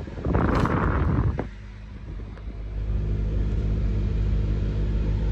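Steady low drone of a running car. A short burst of louder noise comes in the first second or so, and the drone dips briefly before settling back.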